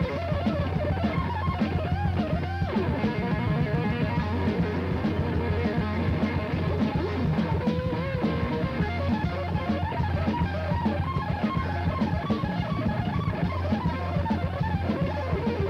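Live thrash metal band playing: electric guitars over a drum kit, the guitar notes bending and wavering.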